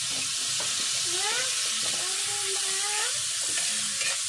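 Food sizzling and frying in a hot pan while it is stirred, a steady hiss. A drawn-out animal call sounds in the background about a second in, rising and then holding its pitch.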